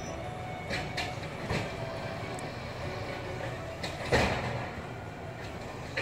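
Automated side-loading garbage truck working a cart with its hydraulic lift arm: engine running steadily, a few light clicks, then a loud metallic bang about four seconds in that rings and fades as the cart is lifted toward the hopper.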